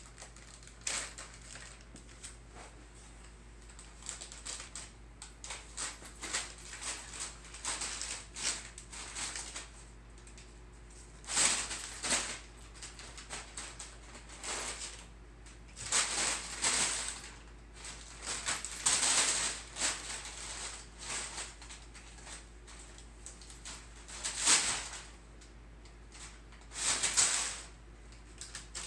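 Brown kraft packing paper crinkling and rustling in irregular bursts as two cats pounce on it and scramble through it, with a handful of much louder crackles among softer rustles.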